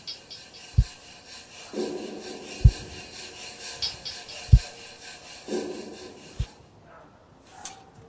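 Hands rubbing and sliding over the top of a folding table, giving a steady rasping scrape that stops about a second before the end. Four dull low knocks about two seconds apart are the loudest sounds.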